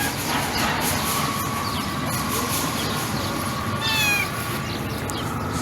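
White cat meowing: one short meow falling in pitch about four seconds in, over steady background noise.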